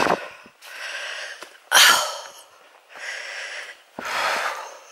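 A walker's hard breathing close to the microphone: rasping breaths in and out, about one a second.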